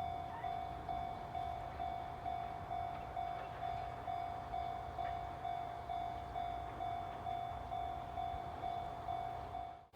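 Japanese railway level-crossing warning bell ringing steadily, about two rings a second, sounding while the crossing is closed for an approaching train. It cuts off abruptly just before the end.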